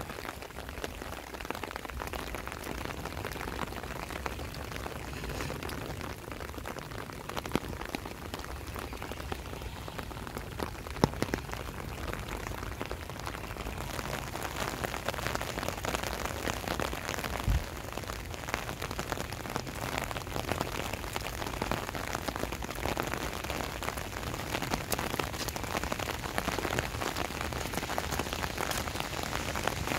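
Steady rain falling on a wet paved path and grass: an even hiss full of fine drop ticks, with a few louder single taps.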